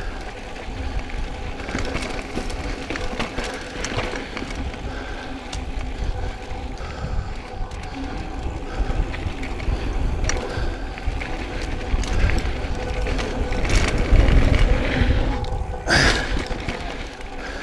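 Mountain bike riding down a dirt trail: tyres crunching and rattling over dirt and loose rock, with wind rumbling on the camera microphone. Near the end there is one sharp, louder scrape or clatter.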